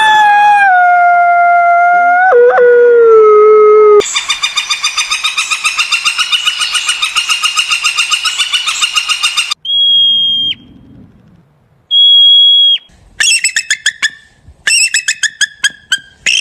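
A run of short animal-call clips cut together: a long howl-like call sliding down in pitch, then a fast, even trill for about five seconds, two steady high whistle-like tones, and a quick run of chirps near the end.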